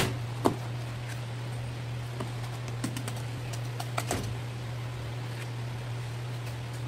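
A few light taps and soft clicks as gloved hands press and handle a skin-on sea bass fillet on paper towel, over a steady low hum. The taps cluster in the first four seconds, the sharpest about half a second in.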